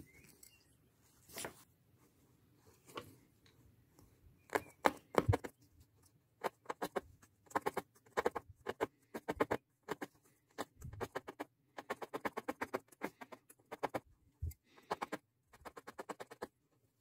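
A felting needle stabbing repeatedly through wool roving and fabric into a foam pad: quick, crisp pokes several a second, in bursts with short pauses.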